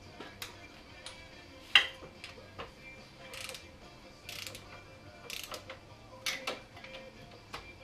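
Metal clinks and knocks of hand tools and exhaust parts being worked in a snowmobile engine bay while a Y-pipe is fitted. There is one sharp clank about two seconds in, then three short rasping strokes about a second apart.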